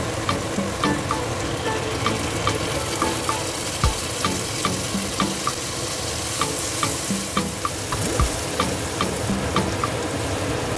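Pounded shallot, garlic and chili paste sizzling in hot oil in a stainless wok, stirred and scraped with a wooden spatula. This is the stir-fry stage where the paste is cooked until the oil separates.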